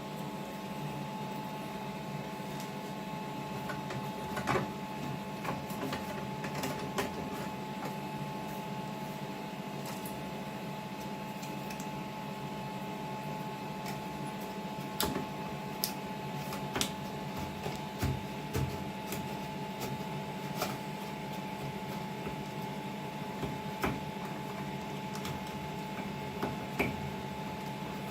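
Washing machine running, with a steady motor hum and scattered clicks and knocks.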